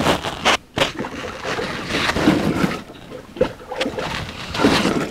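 Water scooped with a plastic cup and poured back into a bucket and pot, splashing in swells, while cañihua grain is rinsed. A couple of sharp knocks in the first second, like the cup hitting the bucket.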